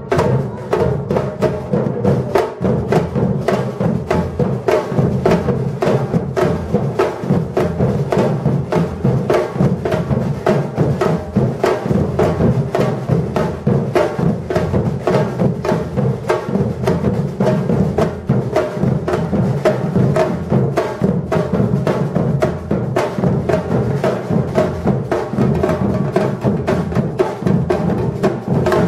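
Batucada drum ensemble playing a dense, steady percussion groove without a break.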